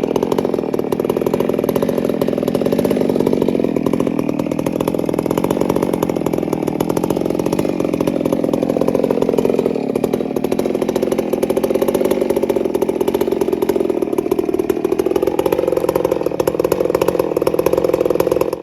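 Old Neotec chainsaw engine running steadily, its pitch wavering slightly.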